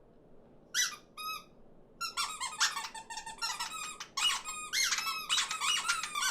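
Animated small birds chattering and squabbling in high, squeaky cartoon voices: two short chirps about a second in, then a dense overlapping flurry of calls.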